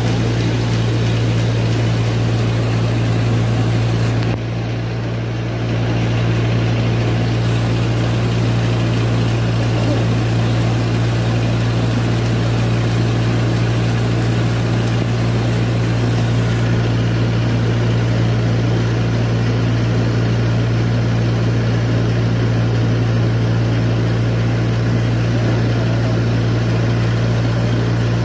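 Rice mill machinery running while paddy is milled: a loud, constant machine drone with a deep steady hum. It dips briefly about four seconds in.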